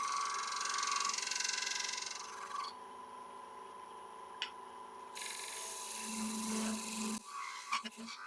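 Wood lathe running with a steady whine while a small gouge, its wing rolled over, takes light finishing scrapes on the paper-thin wall of a wet cherry goblet to clean up tool marks. There is a hissing cut for about two and a half seconds, a pause, then a second pass of about two seconds, and a few light clicks near the end.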